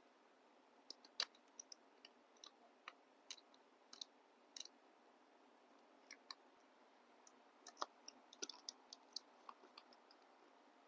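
Faint, irregular small clicks and taps of hands working on a laptop's parts. They come a few per second, loudest about a second in and busiest near the end.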